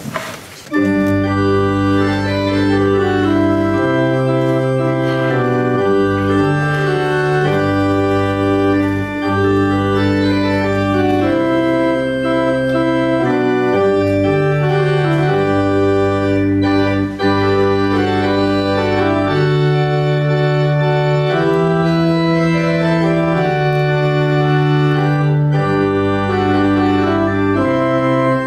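Church organ playing slow, sustained chords, starting about a second in.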